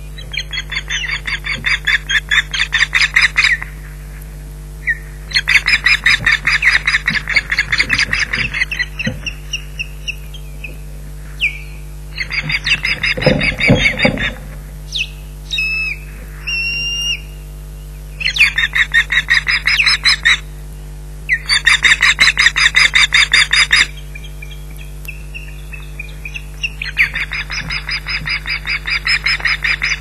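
Ospreys on the nest giving alarm calls at an intruding osprey: six bouts of rapid, high-pitched repeated calls, each lasting a few seconds, with short gaps between them.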